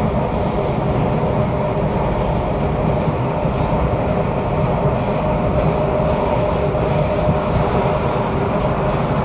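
Kawasaki Nippon Sharyo C751B MRT train heard from inside a motor car while cruising at a steady speed. The traction motors give off a steady roar with several held tones that neither rise nor fall, over the rumble of wheels on track.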